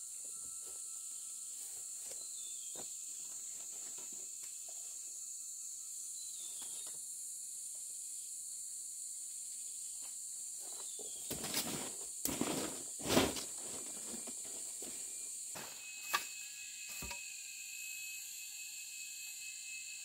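Steady high-pitched insect chorus, such as crickets or cicadas, with a few brief louder rustling or handling noises a little past the middle and a short knock near the end.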